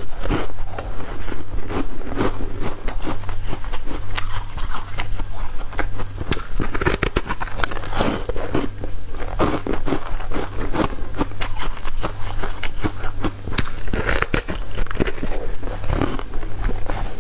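Coloured ice, frozen in a mould, being bitten and chewed: a continuous run of irregular crisp cracks and crunches, with a steady low hum underneath.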